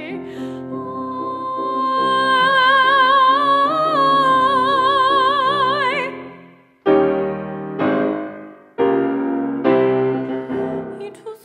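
A female classical singer holds a long high note with wide vibrato over grand piano chords. The note swells and steps up slightly partway through, then is released at about six seconds. The piano then plays on alone, striking four chords roughly a second apart.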